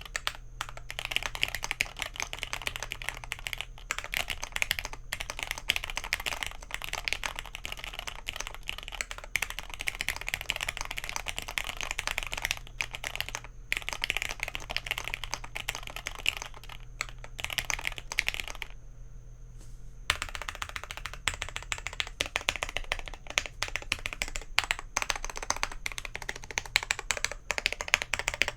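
Mechanical computer keyboard being typed on fast, a dense run of clacking keystrokes for a keyboard sound test, with a pause of about a second roughly two-thirds of the way through. A faint low hum sits underneath.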